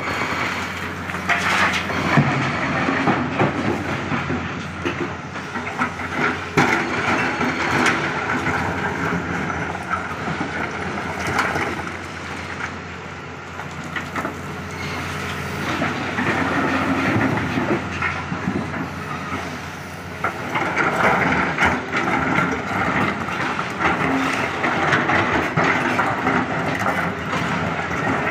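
Hydraulic excavator's diesel engine running steadily under load while its bucket digs into and drops broken rock, with stones clattering and banging, in several loud bouts a few seconds apart as it loads a steel tipper truck body.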